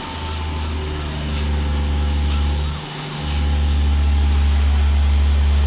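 Engine of concrete-pouring machinery running steadily, with a loud deep rumble that drops out briefly about three seconds in and then comes back.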